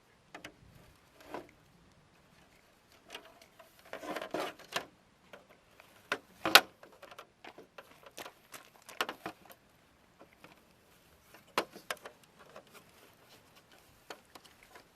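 Irregular clicks and knocks of RV air conditioner parts being handled and cleaned, with a brief rustling, scrubbing noise about four seconds in and a sharp knock about six and a half seconds in.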